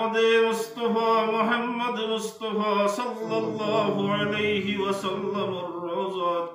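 A man chanting a munajat, an Islamic prayer of supplication, into a microphone in a melodic, drawn-out voice with long held notes.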